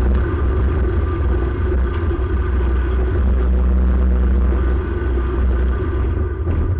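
Predator 212 single-cylinder four-stroke engine in a VW Baja Bug running steadily under load while the car drives off-road.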